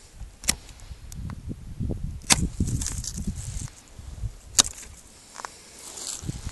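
Hand pruning shears snipping grapevine canes: three sharp snaps about two seconds apart, with a few fainter clicks and low rumbling between them.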